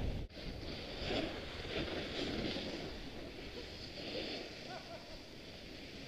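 Skis sliding and scraping over packed snow, with wind rushing over the helmet camera's microphone.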